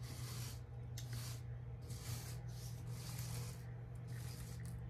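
Small brush sweeping loose rhinestones back and forth across a rhinestone template, brushing them into the template's holes: a scratchy rustle of bristles and small stones, about two strokes a second. A low steady hum runs underneath.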